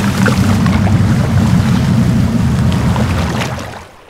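Motorboat engine sound effect running steadily as a low rumble over water and wind noise, fading away near the end as the boat departs.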